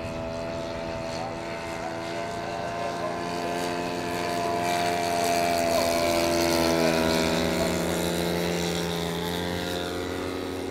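Engines and propellers of large-scale radio-controlled WWI fighter models droning as they fly a display. It grows louder as one plane passes low about two-thirds of the way in, its pitch dropping as it goes by.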